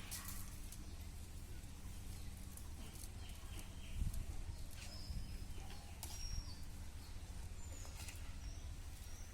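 Outdoor ambience: a steady low hum with a few short, high bird chirps scattered through it, and one dull thump about four seconds in.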